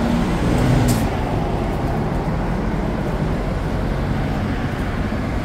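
Steady street-traffic rumble from passing vehicles, with one engine's hum standing out in the first second.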